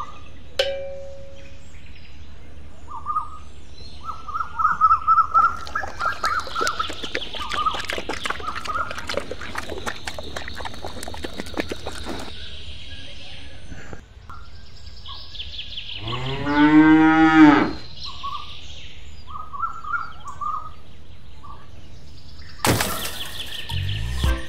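A cow moos once, a long call that rises and falls in pitch, about two-thirds of the way through. Small birds chirp on and off around it, and there is a sharp knock near the end.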